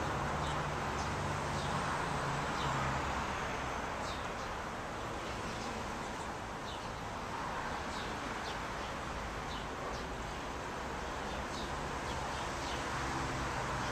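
Outdoor street ambience: a steady low rumble of traffic with birds giving short, high chirps about once a second.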